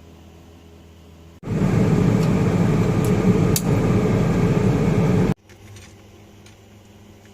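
Kyocera P3260dn laser printer's mechanism running loudly for about four seconds, starting and stopping abruptly, with a few sharp clicks through it. The knocking comes from a fuser drive gear that is missing one tooth.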